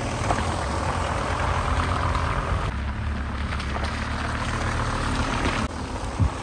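Volkswagen T4 Multivan van driving slowly on gravel: a steady low engine hum with the noise of the tyres rolling over the gravel. Near the end the engine sound drops and a couple of low thumps follow.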